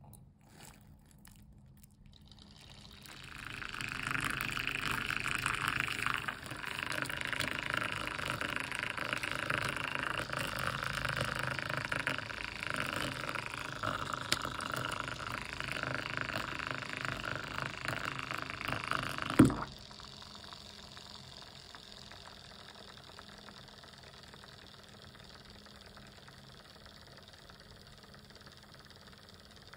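Hot water poured into a stainless-steel mug, with handling noise that fits the marshmallow's plastic wrapper. About two-thirds of the way through there is a sharp click, and then a self-stirring mug's small motor hums steadily as it spins the coffee.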